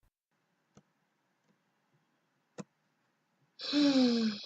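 Two faint clicks, then about three and a half seconds in a loud breathy voice sound with falling pitch, like a sigh.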